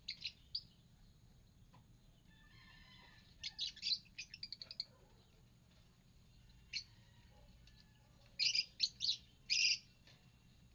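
Pet lovebirds chirping: short, shrill calls in quick clusters, with gaps of quiet between them.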